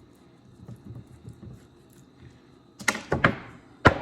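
Soft handling noise, then several sharp knocks about three seconds in as glued wooden wedge segments of a bowl ring are handled and knocked against the bench.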